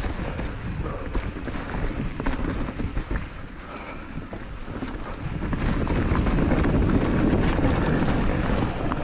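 Mountain bike riding a rough trail: tyre rumble and the bike rattling, with wind on the microphone. It gets louder about five and a half seconds in.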